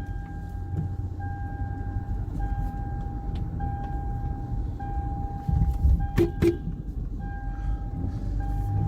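Inside the cabin of a 2008 Toyota Highlander on the move: a steady low rumble of engine and tyres, with a thin high electronic tone held throughout and two sharp clicks about six seconds in.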